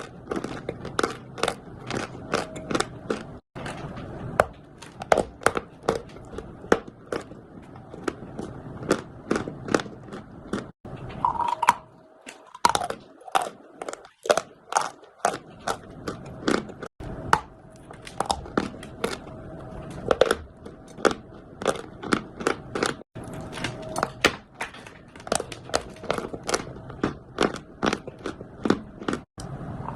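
Chalk being bitten and chewed: a steady run of sharp crunches, about two or three a second, with a brief lull about halfway through.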